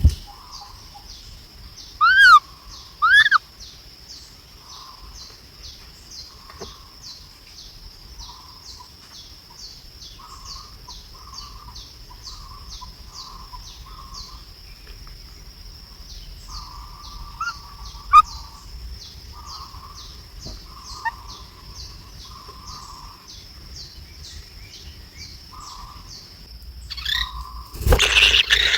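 Birds calling: two loud arched chirps about two and three seconds in, over a continuous high-pitched pulsing trill and scattered soft lower calls. A sharp click comes past the middle, and a loud rustling burst near the end.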